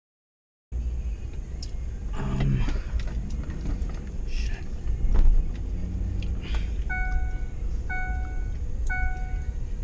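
Car cabin with a steady low engine and road rumble, starting just under a second in after a brief dead gap. From about seven seconds in, a car's warning chime dings about once a second.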